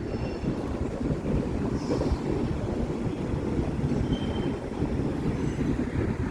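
Freight cars of a long manifest train, auto racks and flat cars, rolling past: a steady rumble of steel wheels on the rails.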